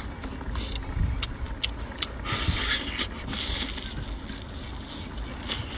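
Clicks and scraping noises of shellfish being handled and eaten, louder scraping about two seconds in, over a low steady rumble.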